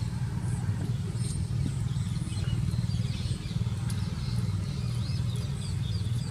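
A steady low rumble, with small birds chirping faintly and irregularly over it.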